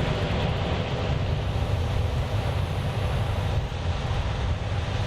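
Steady low drone of heavy farm machinery running.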